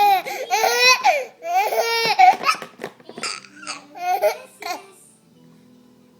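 A baby with the hiccups laughing in high-pitched peals, three strong ones in the first couple of seconds, then shorter, weaker laughs that die away about five seconds in.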